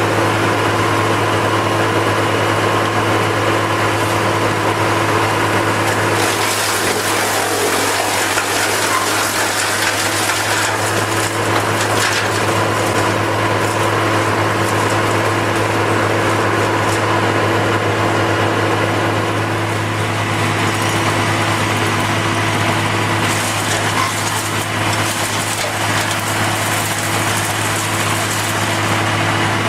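An industrial machine running steadily, with a constant low hum and a steady higher whine over a noisy mechanical wash.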